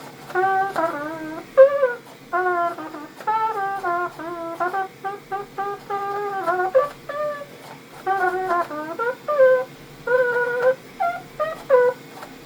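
3D-printed trumpet, with a PETG body and a metal mouthpiece, playing a melody in short, separate notes, some of them wavering in pitch.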